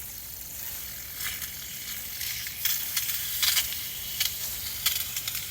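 Hot water being drawn through a 1904 Ruud instant water heater: a steady hiss with irregular crackles as its gas burners come up with the water flow.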